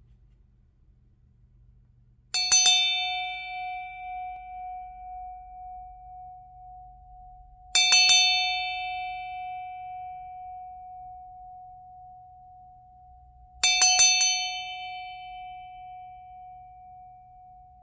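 Large Buddhist bell struck three times, about five and a half seconds apart, each strike a quick cluster of two or three taps. Bright high overtones fade within a second or two, while one steady ringing tone carries on between the strikes.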